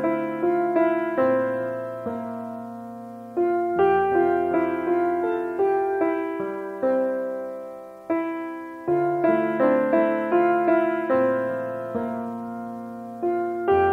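Background piano music: slow phrases of struck notes that ring and fade away, with a new phrase starting every four to five seconds.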